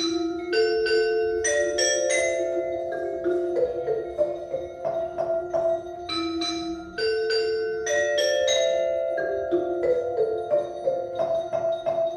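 Music played on tuned mallet percussion: a slow melody of struck bar notes, each ringing on and overlapping the next.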